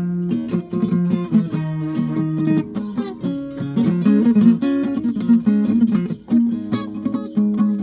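Acoustic guitar played without a pause, a busy run of picked notes and chords, with each note changing every fraction of a second.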